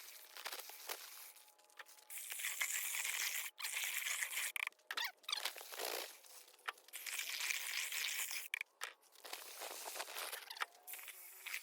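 Gritty scraping in bursts of a few seconds, with short pauses between them: wet sand-and-cement topping mix being worked with a hand tool.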